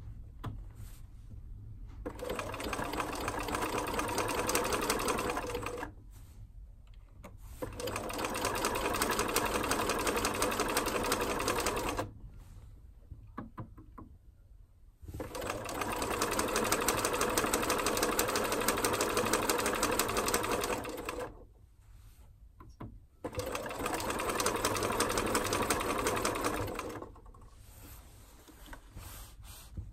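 Bernina 1230 electronic sewing machine (badged Riccar RCM 1230) stitching through fabric in four runs of a few seconds each, the needle going up and down in a fast, even rhythm. Between the runs it stops, and there are short clicks as the stitch-selection buttons and dials are worked.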